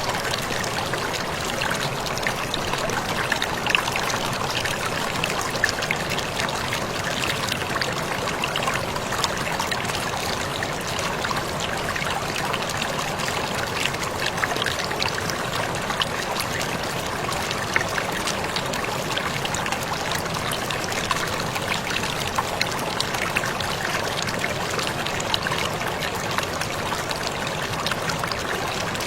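Waterfall: a steady rush of falling water with many small splashes and drips over it.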